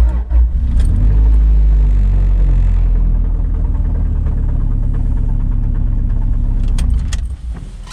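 The Honda Civic's electric radiator cooling fan running steadily with a low drone after the engine has overheated and quit; it winds down about seven seconds in.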